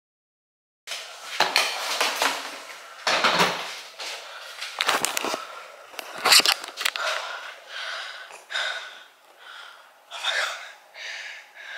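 Irregular knocks, bumps and clatter of suitcases being hauled and handled, starting about a second in.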